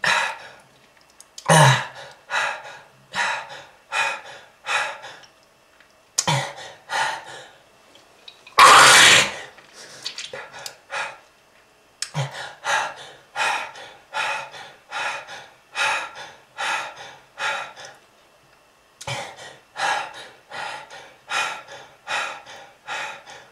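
A person coughing in repeated fits: runs of short harsh coughs about two a second, broken by short pauses, with one long, louder hack about nine seconds in. A smoker's cough, tied to lung disease.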